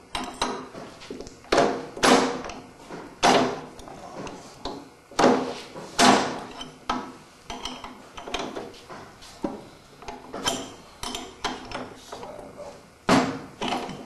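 Irregular metal clanks and clinks of a wrench working a bolt and knocking against the steel parts of a Meyer pecan cracker being taken apart. The sharp knocks ring briefly, with louder ones about one and a half, two, three, five and six seconds in and again near the end.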